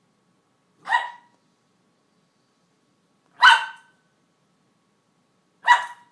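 Cairn terrier barking three times, single short sharp barks a couple of seconds apart, at a piece of kibble out of reach under her crate.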